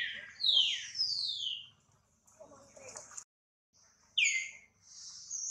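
High-pitched animal calls, each sliding quickly down in pitch: three in the first second and a half and two more near the end, with a softer, lower call in between.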